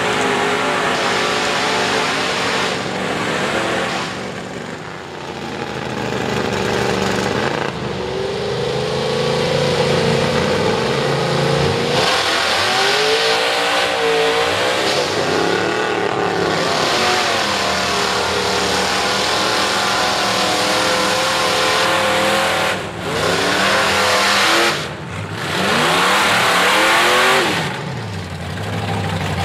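Lifted GMC pickup's V8 on open headers revving hard over and over as the truck churns through deep mud on 44-inch Ground Hawg tires, the pitch climbing and falling with the throttle. About three-quarters of the way through, the throttle drops off briefly twice before picking up again.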